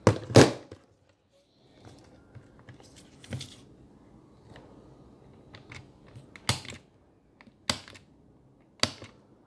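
Sharp plastic clicks from an L.O.L. Surprise toy capsule being handled and locked shut. A loud pair of clicks at the start, then faint rustling, and single clicks about once a second near the end.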